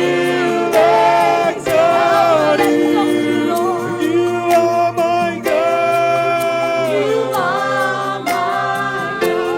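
Church worship team singing a slow worship song, several voices holding long notes with a slight waver in pitch.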